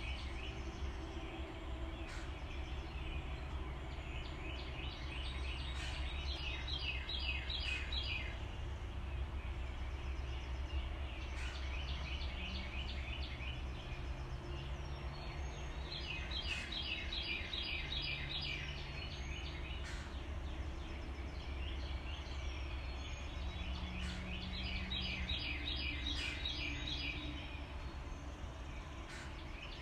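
Steady rush of river water pouring over a low dam and through rocky shoals below, with a deep rumble under it. Over it, a rapid pulsed trilling call comes about five times, each lasting a second or two.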